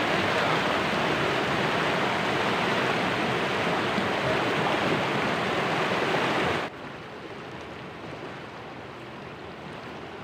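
Floodwater rushing through a concrete road culvert and out in turbulent white water, a loud, steady rush. About two-thirds of the way through it drops abruptly to a quieter rush of water.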